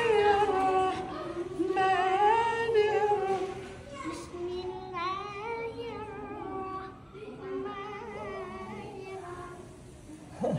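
A single high voice, unaccompanied, recites in the melodic Quran-reciting style (tilawah), with long ornamented phrases and wavering pitch. The phrases grow softer after about four seconds, and a loud new phrase starts near the end.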